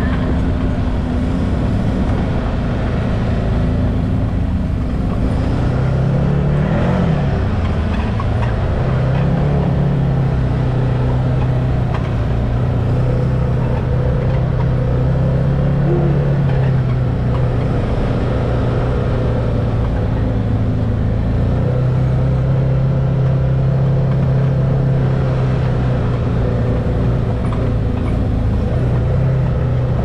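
Can-Am Maverick X3 side-by-side's three-cylinder engine running at a steady trail cruise, heard from the driver's seat. Its pitch dips and rises briefly about seven seconds in, then holds steady again.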